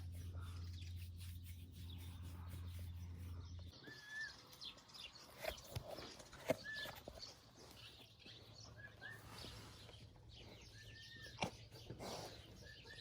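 A steady low hum that stops about four seconds in, then a few short, soft bird chirps scattered through the rest, with the odd sharp click.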